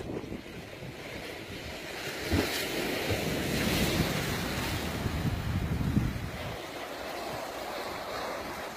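Sea surf washing against a rocky shore, with wind buffeting the microphone; the surf grows louder for a few seconds in the middle.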